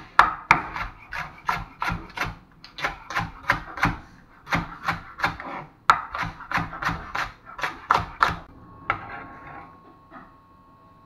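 Chef's knife chopping a leek on a wooden cutting board: quick, even knocks of the blade on the board, about three a second, stopping about eight seconds in, followed by a few softer scrapes.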